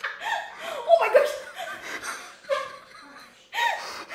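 A young child laughing in short, high-pitched peals, with a few voiced sounds between them.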